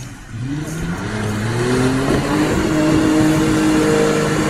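4x4 SUV engine revving hard under load in deep mud. Its pitch climbs over the first two seconds and then holds at high revs, growing louder as it approaches, with tyres churning through mud and water.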